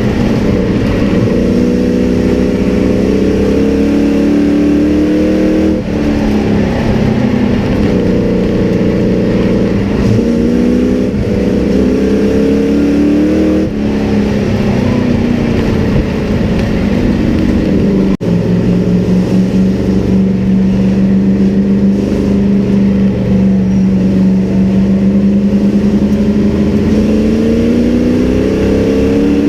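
Sport truck race engine heard from inside the cab under racing load. Its pitch climbs on the straights and drops into the turns, lap after lap. Past the middle it holds a steady lower pitch for about ten seconds, then climbs again near the end.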